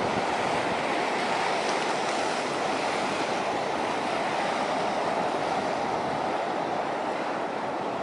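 Surf washing on the shore, a steady, even rush of water noise.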